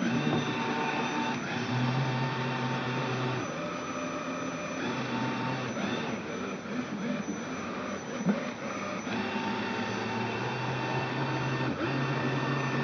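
Meyoung robot vacuum cleaner running in mop mode across a lino floor: a steady whirring with a low motor hum that comes and goes every second or two. There is a light knock about eight seconds in.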